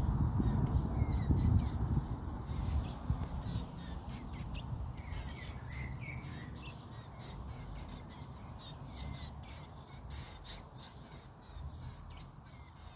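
Birds chirping: short, high calls repeating two or three times a second throughout. A low rumbling noise is the loudest thing in the first couple of seconds, then fades.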